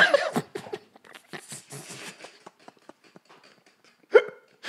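Men laughing hard, mostly breathless: short gasping pulses of laughter that die away, then one brief voiced laugh about four seconds in.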